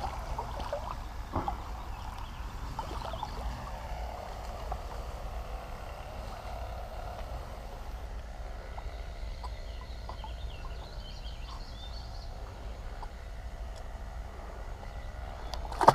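Steady outdoor noise of a river setting with a low wind rumble on the microphone, a few faint clicks, and a sharp knock near the end.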